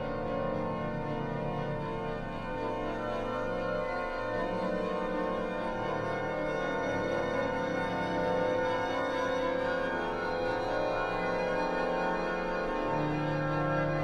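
Church organ playing slow sustained chords, the held notes changing every second or two, with a new bass note coming in near the end.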